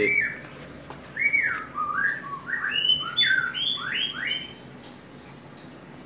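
Lovebird calling: a quick run of about ten short chirps that slide up and down in pitch, starting about a second in and ending a little past the middle.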